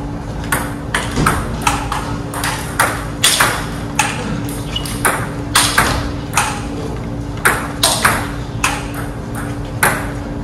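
Table tennis ball in a rally, clicking off the rubber bats and bouncing on the table top, a sharp hit or bounce about every half second.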